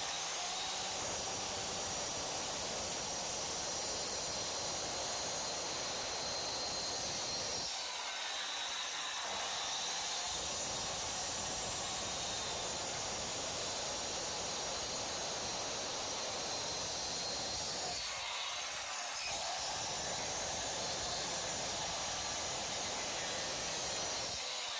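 Handheld marble cutter used as a circular saw, running steadily through a dado cut in a wooden board, heard as an even hissing whine. The sound dips briefly twice along the way.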